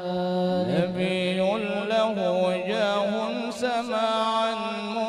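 Arabic devotional chant as background music: a singer's voice winds through long ornamented melodic runs over a steady held drone.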